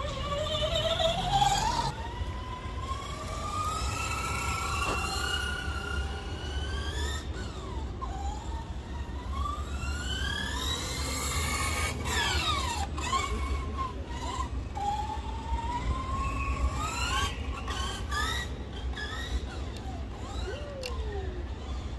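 Electric motor and gear drive of a 1/8-scale YK4082 Pro RC Jeep crawler whining as it drives, the pitch rising and falling again and again with the throttle, over a low steady rumble.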